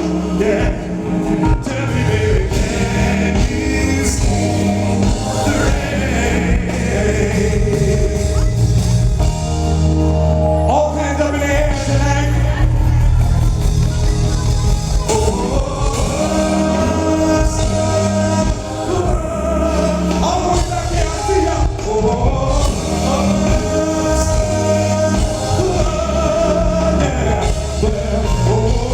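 Live R&B band performance: a male lead vocal singing sustained, bending melody lines over a band with a continuous bass.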